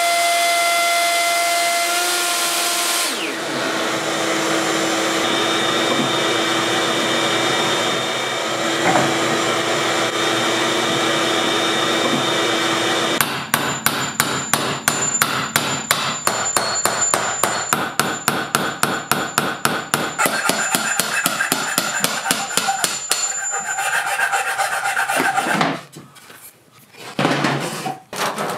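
A woodworking machine running steadily, one of its tones falling away as it spins down, then about ten seconds of rapid, evenly spaced mallet blows on a chisel chopping a mortise in a wooden post. A few lighter knocks follow near the end.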